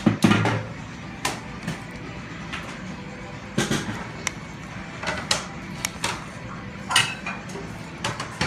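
Spoon knocking and scraping against a stone bowl as rice is stirred into the dipping broth, about half a dozen sharp clinks spread over a steady background of restaurant noise.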